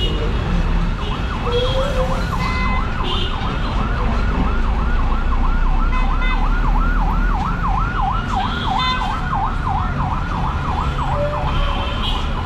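Electronic vehicle siren warbling rapidly up and down in pitch, beginning about a second in, over a steady rumble of street traffic.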